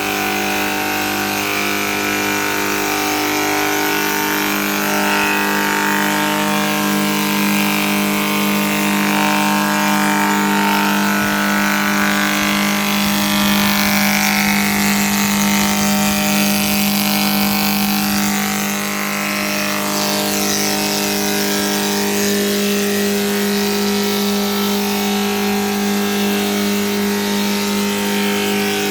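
Wood planer machine running with a steady motor hum and high cutter hiss while shaping a moulding from HDHMR board.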